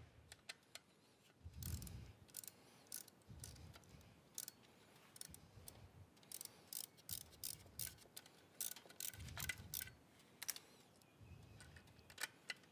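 Faint, irregular sharp clicks and soft knocks of hand tools and parts as a cover on a motorcycle is fitted and screwed back in place.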